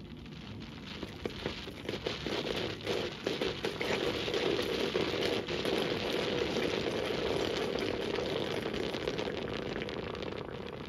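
Model geyser erupting: water spurting from the central tube and spattering over the inside of a clear plastic bowl, making a dense crackling patter like rain. It builds over the first few seconds and eases off near the end.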